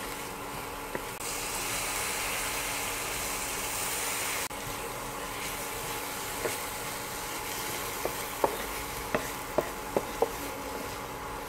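Sliced onion and garlic sizzling in a frying pan, louder for the first few seconds. In the second half a wooden spatula stirs them, with a series of light taps against the pan.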